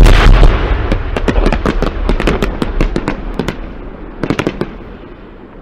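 Fireworks: a salvo going off at once with a sudden loud bang, then a rapid run of sharp cracks and pops for about three seconds. A second short cluster of cracks comes about four seconds in, and the sound dies away after it.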